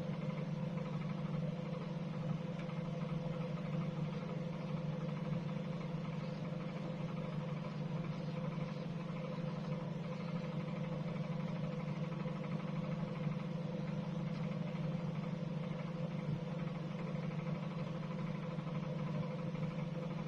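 Microwave oven running with a steady low hum, heating frozen crispbakes through.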